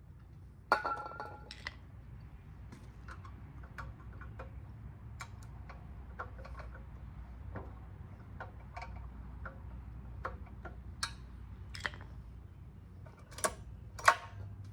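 Small metal clicks and taps from handling the generator's carburetor and linkage parts, scattered irregularly, with one clink about a second in that rings briefly. A low steady hum runs underneath.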